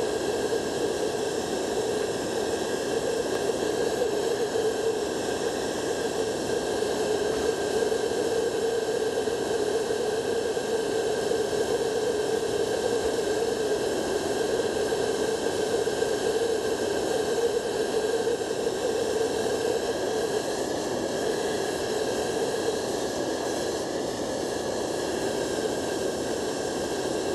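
Steady rushing hiss of a heating tool running continuously as it heats an intumescent pad, with a faint steady high whine above the rush.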